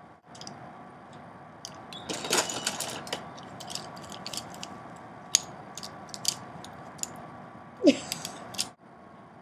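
A bunch of wooden paintbrush handles clicking and clattering together as they are handled, in scattered sharp clacks with a dense burst about two seconds in. Near the end comes the loudest clatter, together with a short falling squeak.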